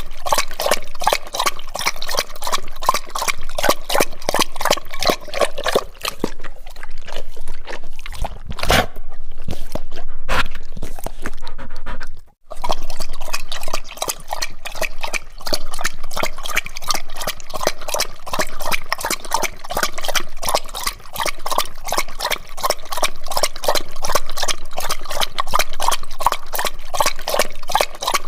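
Dog drinking water, lapping it up with its tongue in a quick, steady run of wet splashy laps, with a short break about twelve seconds in.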